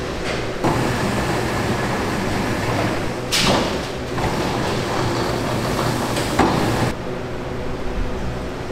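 Steady hum of machinery or ventilation, with a rushing noise from about half a second in until it cuts off near seven seconds, and a sharp short noise about three and a half seconds in.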